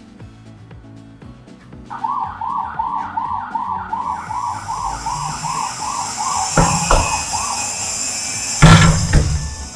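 Toy police car's electronic siren sounding in a fast yelp, about three quick rise-and-fall whoops a second, starting about two seconds in. A high hiss joins partway through, and two loud thumps come near the end, the second the loudest.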